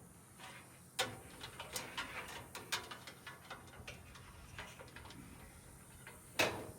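Small pieces of washer-and-dryer scrap being handled and sorted: irregular light clicks and knocks, with a sharper knock about a second in and the loudest one near the end.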